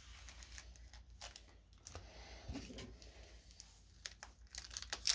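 Foil Pokémon booster packs and cards being handled: faint, irregular crinkling and rustling with scattered light clicks, and a sharper click near the end.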